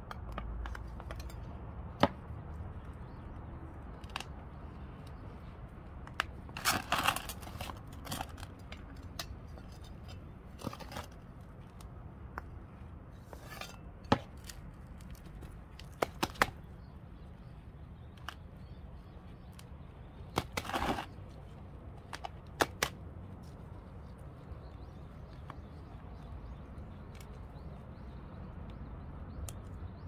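Scattered sharp clicks and short crackling rustles of hands working a potted geranium and its potting soil during repotting, over a steady low rumble.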